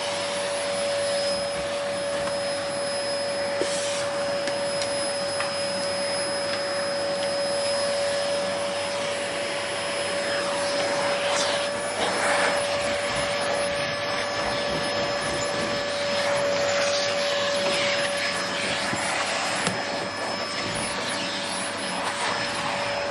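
Vacuum cleaner running steadily while cleaning stairs: a constant rushing motor noise with a steady whine, and a few brief bumps and scrapes of the nozzle, around 4 and 12 seconds in.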